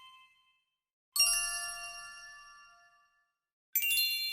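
A bell-like chime struck twice, about a second in and again near the end. Each strike rings with many high, clear tones and fades over about two seconds. At the start, the ring of an earlier strike is dying away.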